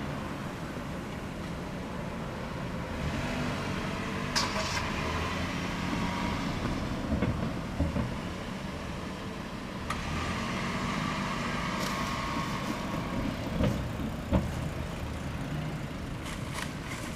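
Road traffic: motor vehicle engines running with vehicles passing in two swells that build and fade, and a couple of sharp knocks.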